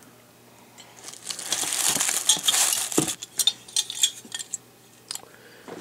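Paper rustling for a couple of seconds, then a run of light clinks and clicks as die-cast metal toy trucks are handled and knocked together.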